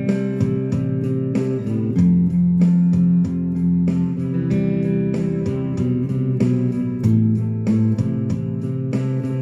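Instrumental guitar music: chords strummed in a steady rhythm over low bass notes that change every second or two.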